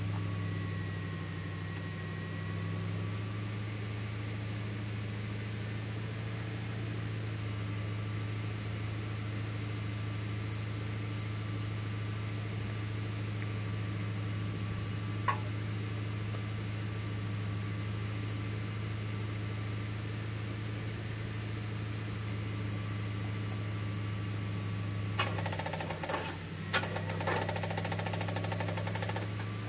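An engine idling steadily at an even pitch, with a few sharp clicks and rattles near the end.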